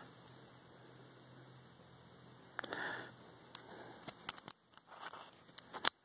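Chateau C870 stainless-steel disc padlock being worked with its key: a soft handling noise about halfway through, then a scatter of sharp metallic clicks over the last two seconds or so, the last one the loudest.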